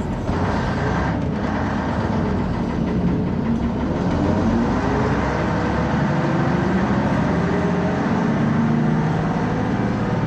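A large vehicle's engine running continuously, its pitch slowly rising and falling.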